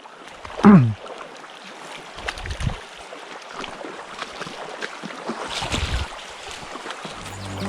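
Rushing river water with splashing and scattered crackles as a hooked trout is fought, with a short falling vocal exclamation about a second in and a few low thumps.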